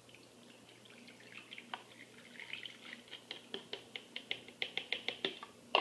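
Metal spoon scraping and tapping inside a plastic bowl as the warm milk and melted butter are emptied out: a run of quick ticks, about five a second, that grows louder and ends in a sharper knock.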